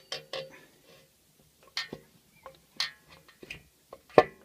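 Sharp metal clicks and knocks as a crankshaft is worked into its crankcase bearing in a Honda GXV160 engine, the loudest knock near the end as it seats.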